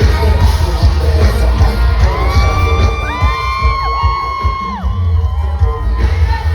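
Live concert sound of an R&B song played loud over a PA, with a heavy bass line and long held, gliding vocal notes in the middle, and the crowd shouting and whooping.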